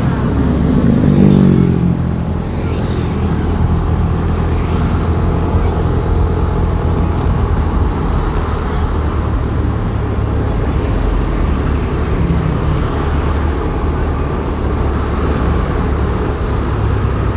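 Motorcycle ride-along with road traffic: a steady low engine drone and road noise. In the first two seconds an engine tone falls in pitch.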